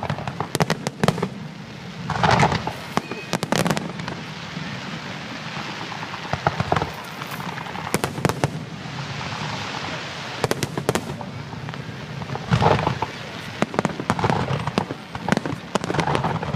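Fireworks going off: a string of sharp bangs and crackling pops, coming in several denser bursts of rapid crackling.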